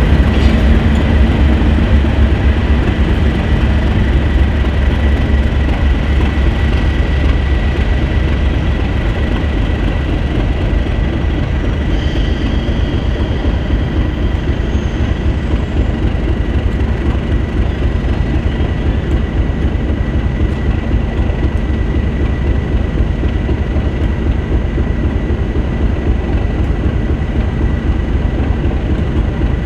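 English Electric Class 37 diesel locomotive running, a steady deep rumble from its V12 engine with a thin steady high whine over it, easing a little over the first ten seconds and then holding steady as it stands at the platform.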